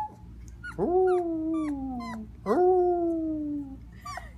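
Cocker spaniel puppy howling: two long drawn-out howls, each starting with a sharp rise and then sliding slowly down in pitch, with a short break between them.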